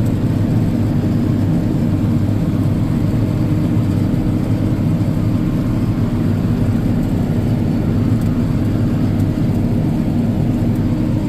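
Farm tractor's engine running steadily under heavy load as it pulls a disc through a field, a constant low drone with no change in pitch.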